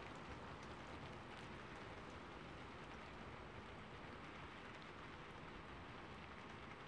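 Steady faint hiss of background noise, with a few faint scattered ticks.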